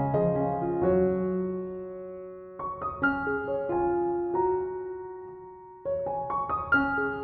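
Background piano music: clusters of struck notes that ring and fade, with a new group of notes about two and a half seconds in and again near the end.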